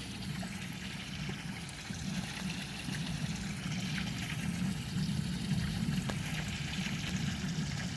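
Water from a pool waterfall spilling steadily into the pool.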